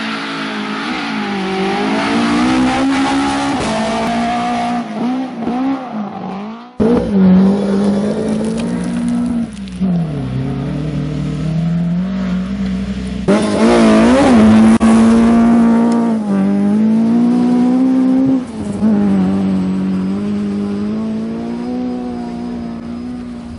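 Rally car engines revving hard, the pitch rising and falling repeatedly with gear changes and lifts, in a few edited clips that cut sharply about seven and thirteen seconds in.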